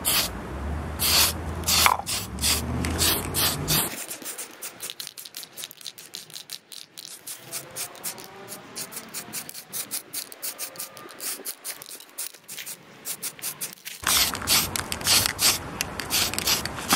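Aerosol can of primer spraying in short bursts, with stretches of rapid rattling as the can is shaken to mix the paint.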